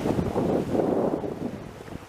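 Wind buffeting the microphone over the wash of sea waves, easing off near the end.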